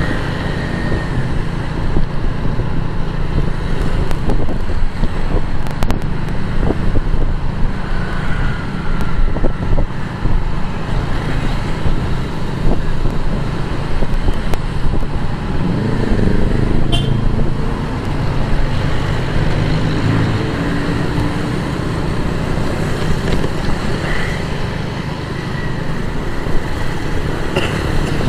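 Motorcycle riding through city traffic: its engine running under a steady heavy low rumble, with other vehicles' engines passing, one rising and falling in pitch about midway.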